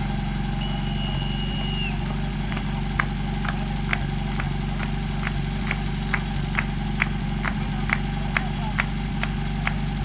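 Portable fire pump engine running steadily at idle. A single brief high tone sounds near the start, then a regular series of sharp clicks about twice a second runs on over the engine.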